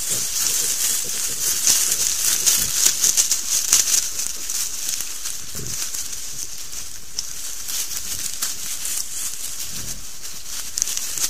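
Wild boar sow and striped piglets rooting and shuffling through dry leaf litter right beside the microphone: constant rustling and crackling over a steady hiss, busiest in the first few seconds.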